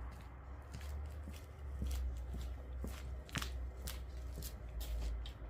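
Scattered light clicks and rustling from handling or moving about, over a steady low rumble.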